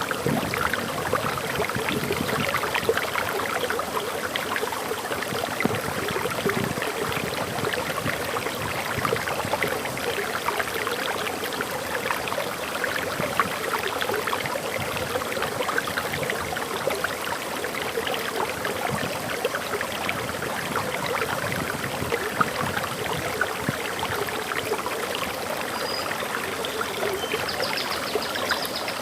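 Water pouring and splashing over a small forest waterfall, a steady babbling rush. A bird gives a short high chirp near the end.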